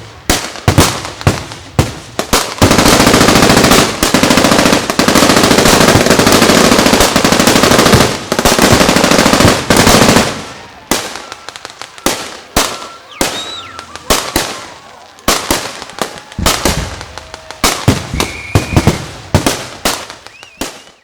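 Machine-gun fire: scattered shots, then a long unbroken run of rapid automatic fire for about seven seconds, then ragged single shots and short bursts again.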